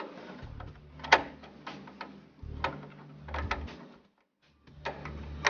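Sharp clicks and light knocks of small plastic and metal computer parts being handled, with dull low bumps in between, during work at the CPU socket.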